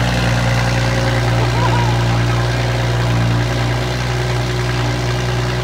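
Toyota Supra MK5 idling steadily on a cold start through its newly installed aftermarket exhaust, a deep, even drone with no revving.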